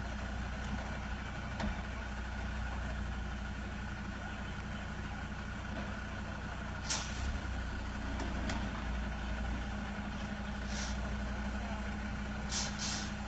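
Large engine idling steadily with a low hum, with a few short hisses about halfway through and near the end.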